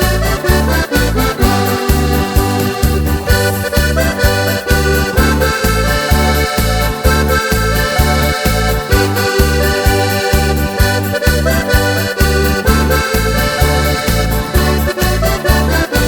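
Background music with a steady, bouncy bass beat and a sustained accordion-like melody.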